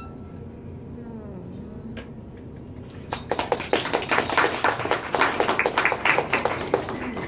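A small group of guests applauding, starting about three seconds in: dense, irregular hand claps that carry on for about four seconds.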